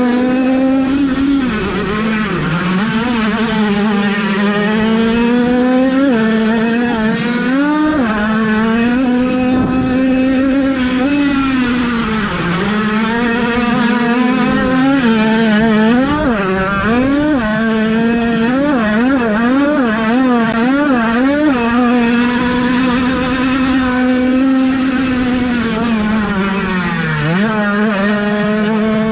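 Several 50cc two-stroke minicross motorcycle engines revving high, their pitch dropping and climbing again and again with throttle and gear changes, with more than one bike heard at once around the middle.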